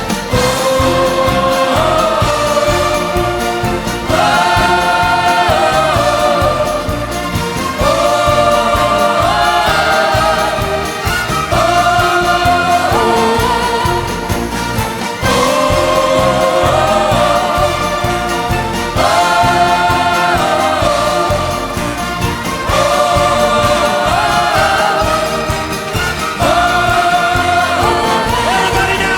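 Pop band music with no lyrics sung: a melody in repeating phrases about every four seconds, with a choir-like sound, over a steady beat.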